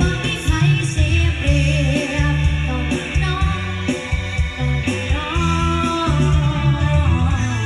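A song with singing and a heavy bass line played through a loudspeaker under test.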